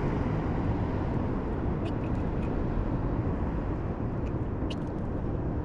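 Steady low rumble of outdoor noise on the camera microphone, with a few light clicks from the hook and handline as a caught fish is unhooked.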